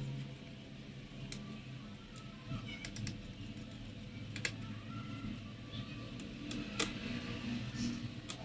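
Scattered light clicks and taps of small hard laptop parts being handled, with two sharper clicks in the second half, over a faint low hum.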